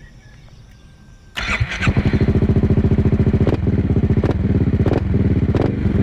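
A Yamaha XMAX 250 scooter's single-cylinder four-stroke engine starts up about a second and a half in. It then idles with a loud, even, pulsing exhaust beat through an aftermarket long silencer.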